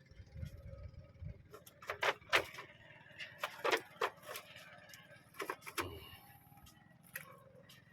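A scatter of short, sharp knocks and clinks, the loudest about two seconds in, with a few dull low thumps near the start and again near six seconds.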